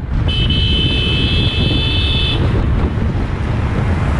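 A vehicle horn sounds once, a high, steady note held for about two seconds, over the continuous low rumble of a motorcycle on the move at road speed, with wind on the microphone.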